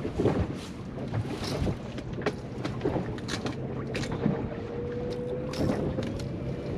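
Boat motor running steadily at trolling speed, with wind buffeting the microphone and scattered knocks against the hull. A faint tone rises slowly in pitch past the middle.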